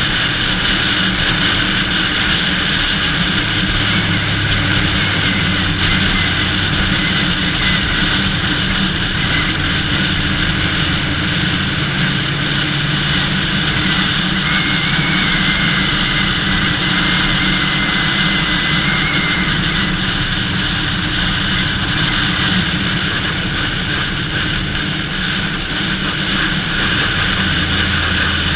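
1988 Ducati Paso 750's V-twin engine running under way at a moderate pace, with rushing wind over a helmet-mounted camera. The engine note steps up and down a few times as the speed changes.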